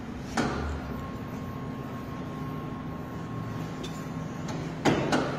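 ecoATM kiosk mechanism working during a phone appraisal: a steady mechanical hum with a faint high whine, and a knock about half a second in and another near the end.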